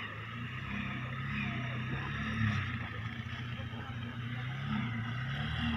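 Diesel engine of heavy machinery running, its pitch drifting up and down as it is throttled.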